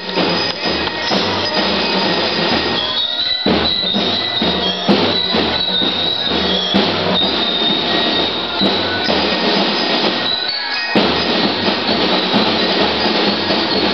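A drum and lyre corps playing: drums beating a steady repeating rhythm under the ringing of bell lyres, loud throughout, with short breaks about three seconds in and near eleven seconds.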